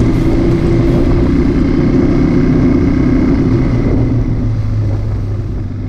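KTM Duke 200's single-cylinder engine running steadily through its muffler, the sound fading near the end.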